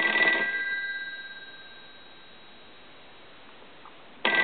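Western Electric 5302 telephone's bell ringer ringing. A ring ends just after the start and its two gong tones die away over about a second and a half. After a pause of about three seconds the next ring starts abruptly near the end, in the on-off cadence of a normal incoming ring.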